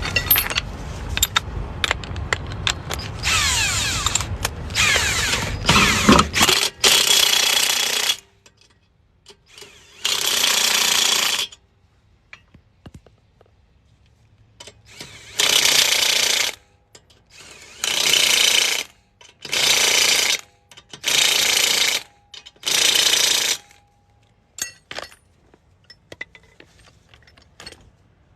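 Impact wrench hammering in about ten short bursts, each a second or so long, with pauses between: lug nuts being run onto a spare wheel.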